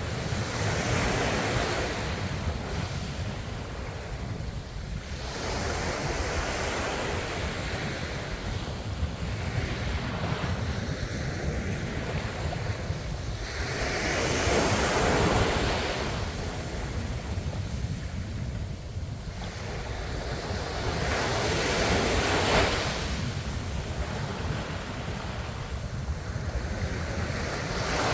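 Ocean waves surging and washing on the shore in slow swells, one every several seconds, over a steady low rumble.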